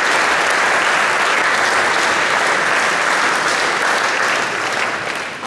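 Audience applauding, a dense even clapping that begins to die away near the end.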